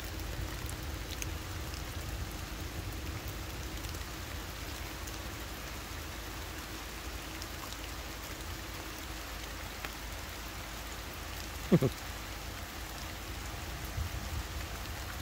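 Steady rain falling on the surrounding foliage: an even hiss with a low rumble underneath. About twelve seconds in, one short sound drops steeply in pitch.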